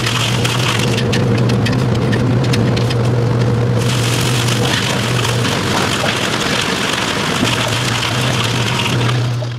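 Workshop machinery running with a steady low hum. Wooden stakes clatter and tick as they are handled and stacked.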